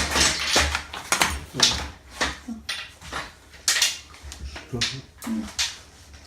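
Wooden venetian blind being handled, its wooden slats and headrail knocking and clattering in an irregular run of knocks.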